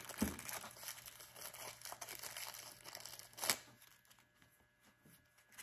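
Faint handling sounds: small plastic bags crinkling and metal valve seat cutters clicking against their plastic case, with one sharper knock about three and a half seconds in.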